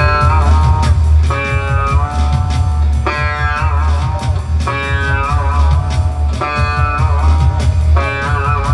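Amplified sitar playing a surf-rock tune, quick runs of plucked notes with bending pitches over a steady low bass.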